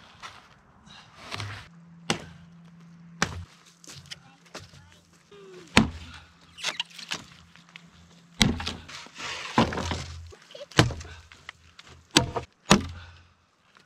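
Axe chopping into a driftwood log: a series of sharp blows, about eight of them, roughly a second apart, two coming close together near the end.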